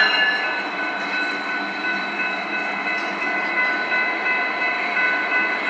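Long train rolling past: steady rolling noise with faint clicking of wheels on the rails and several steady high-pitched tones above it.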